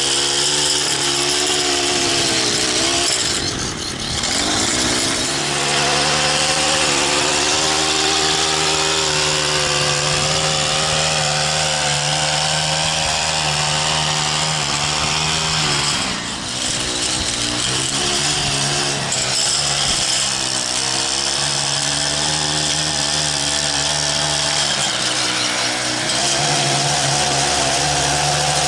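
Gas stick edger's small engine running near full throttle as its blade cuts grass along a concrete edge. The revs drop briefly twice, about four seconds in and again about sixteen seconds in, then rise back up.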